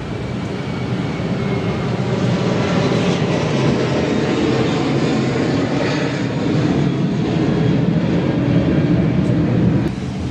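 An engine running with a steady drone; it builds up over the first couple of seconds, holds, and eases off near the end.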